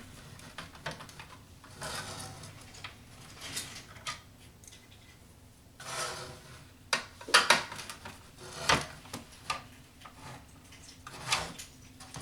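Screws being backed out of a subwoofer's amplifier panel with a screwdriver: irregular small clicks and scraping rubs of metal on the panel, with a cluster of sharper clicks about two-thirds of the way through.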